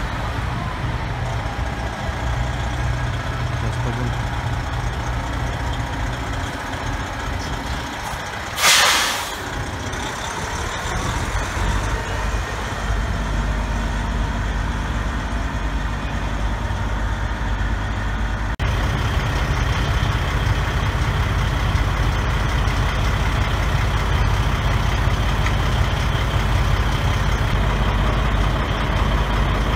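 Diesel engine of a heavy Freightliner Classic wrecker idling steadily, with one short, loud hiss of released air about nine seconds in, like an air-brake release. In the second half the engine drone is louder.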